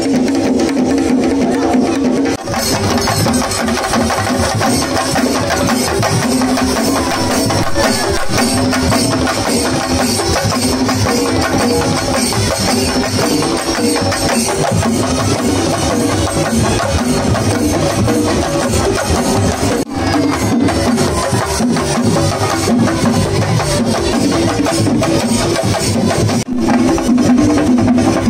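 Loud festival music with a heavy, driving drum beat, playing without a break apart from a few momentary drops.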